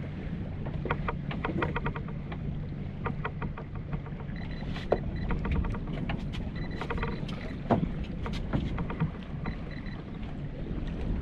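Aboard a small fishing boat: a steady low rumble of wind and water, with runs of quick clicks and rattles and a few louder knocks, about two-thirds of the way through.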